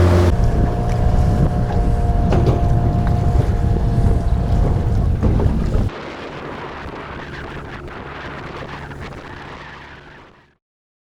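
Outboard motor running on a small boat, with strong wind buffeting the microphone and waves splashing. About six seconds in it drops sharply to a quieter wind-and-water noise that fades out to silence.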